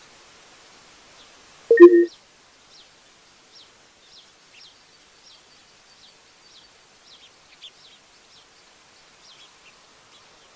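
Small birds chirping, many short high chirps scattered through, over a steady hiss, with one loud short call about two seconds in.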